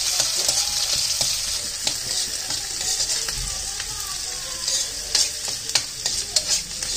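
Chopped onion, garlic, ginger and green chilli with cumin seeds sizzling in hot oil in a kadai while a steel ladle stirs them, lightly browning. Sharp clicks of the ladle against the pan come in the second half.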